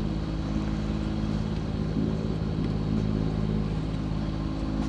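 Sailboat's auxiliary engine running steadily under way, a constant hum with no change in speed.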